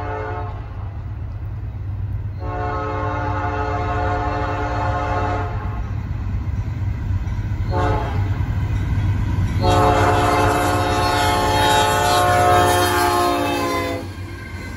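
Norfolk Southern freight locomotive's air horn sounding the grade-crossing signal, long, long, short, long. The first long blast ends just after the start and the last cuts off about 14 seconds in. The diesel locomotives rumble steadily underneath and grow louder as the train draws near.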